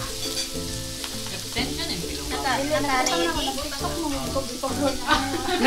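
Meat sizzling on an electric tabletop barbecue grill, a steady frying hiss, with background music and voices.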